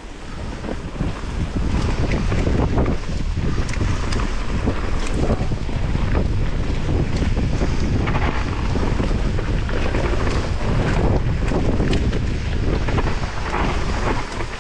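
Mountain bike descending a dirt trail at speed: knobby tyres rumbling over the ground and the bike rattling and knocking over bumps, under steady wind buffeting on the microphone.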